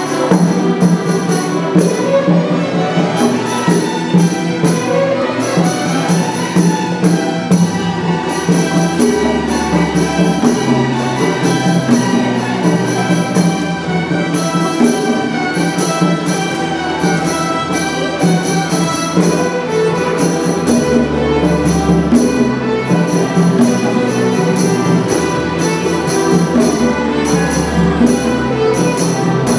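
School orchestra playing a lively piece with strings, steady low bass notes and fast, even high percussion ticks on top.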